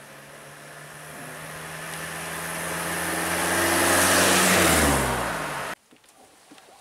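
Eicher lorry driving past, its engine growing steadily louder as it approaches, then falling in pitch as it goes by. The sound cuts off suddenly about a second before the end.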